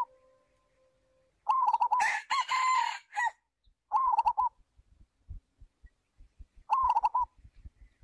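Red junglefowl cocks crowing: short, clipped crows of a few quick warbling notes, one after another, about four times. Two of them overlap around the two-second mark with a hissing burst.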